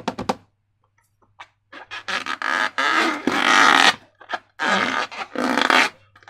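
Slime being squeezed and worked by hand, making wet squelching and crackling in two long runs after a few short clicks.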